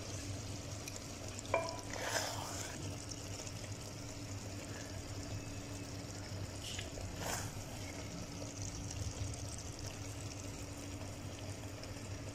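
Wooden spoon serving chicken and gourd curry from a pan onto a ceramic plate: a sharp knock on the plate about a second and a half in, then a few soft scrapes of spoon and wet food, over a steady low hum.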